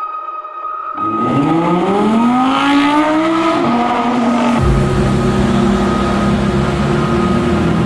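A supercar engine comes in loudly about a second in, rising in pitch as it revs up. About halfway through it changes to a steady, deeper running note.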